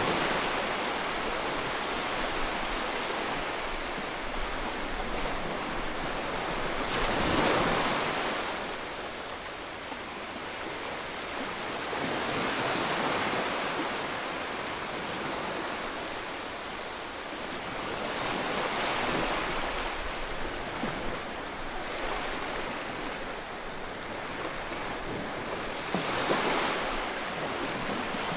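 Steady rush of water, swelling and easing about every six seconds.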